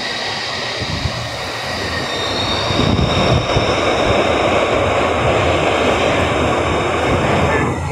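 Glasgow Subway Stadler train, unit 317, accelerating away from the platform. Its electric traction motors give a whine that climbs in pitch over rail and wheel rumble. The rumble grows louder as the cars pass, then falls away sharply near the end.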